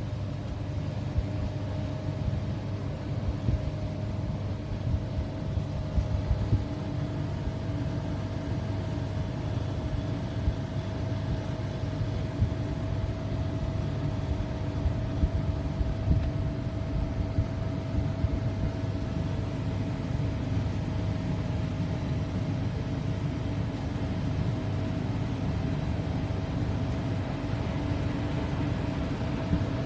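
De'Longhi Pinguino PAC EM82 portable air conditioner running: a steady low hum with one steady whining tone over it.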